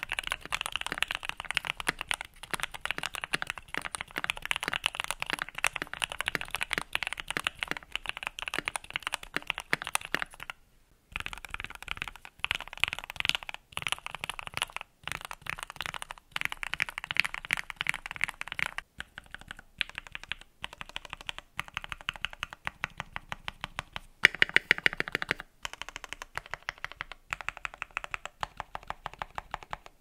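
Typing on a Keychron Q1 mechanical keyboard with lubed Keyfirst Gateron Cream linear switches and XDA-profile bubble PBT dye-sub keycaps, tape-modded with plate, case and PE foam: a fast, steady run of keystrokes. There is a brief pause about ten seconds in and a louder flurry about 24 seconds in.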